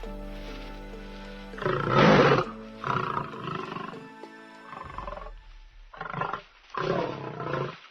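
A lion snoring: a series of loud, separate snores, the loudest about two seconds in and the last near the end, over background music.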